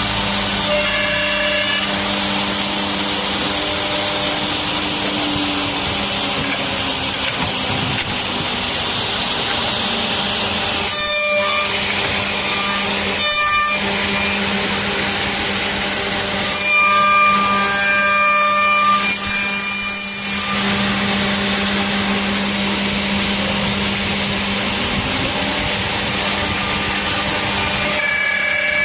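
CNC mortise-and-tenon milling machine running, its spindle motors and cutters milling wood with a steady hum and noise. The sound briefly changes a few times, about a third and two-thirds of the way through.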